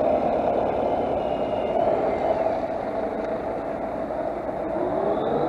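A vehicle's engine running steadily, then rising in pitch as it revs near the end.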